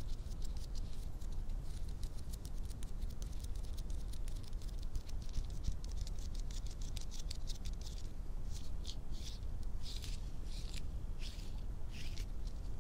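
Close-miked ASMR hand sounds: fingers and nails working close to the microphone in a fast run of light crackling scratches. From about eight seconds in they give way to slower swishing rubs, about two a second, over a steady low rumble.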